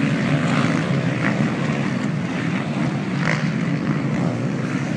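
The engines of a pack of motocross bikes running together as the riders climb a sand hill: a steady, overlapping engine noise with no single bike standing out.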